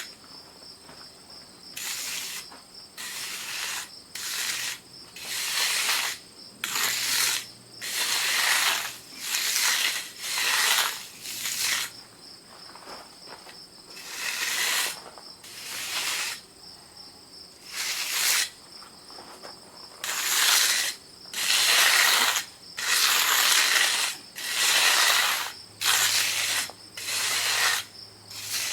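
Repeated scraping strokes of a hand finishing tool worked across a fresh concrete surface, about one stroke a second, with insects chirping steadily.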